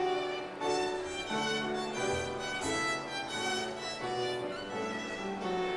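Instrumental music, a violin playing the melody over lower held notes.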